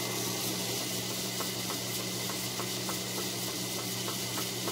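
Belt-driven metal lathe running at speed with an off-centre casting and counterweight bolted to its faceplate: a steady motor hum and hiss with a faint regular tick about three or four times a second. The load is close to balanced and shakes only a little.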